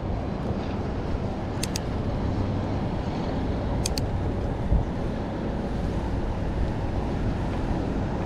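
Steady low rumble and wind buffeting on the microphone from a Specialized Stumpjumper mountain bike being ridden. There are two quick double clicks, the first about one and a half seconds in and the second about two seconds later, and a single low thump a little later.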